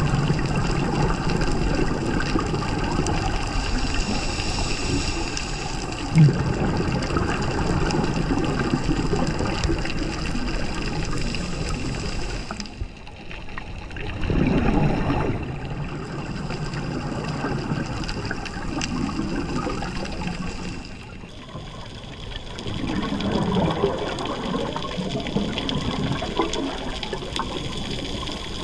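Underwater sound of a scuba dive: steady rushing and gurgling water, with loud bubbling bursts of regulator exhaust bubbles. The sound drops briefly twice, once about halfway through and again a few seconds later, and each drop is followed by a louder burst of bubbles.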